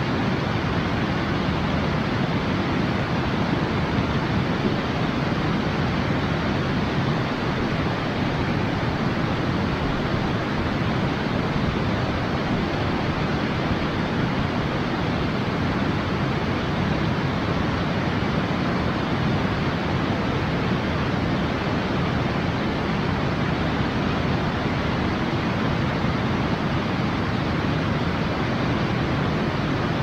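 Steady rush of water from a nearby waterfall, an even hiss with no breaks.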